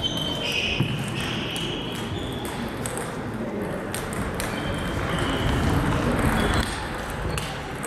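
Table tennis rally: a plastic ball clicking off the bats and pinging off the table, several hits with short ringing tones, in a large sports hall.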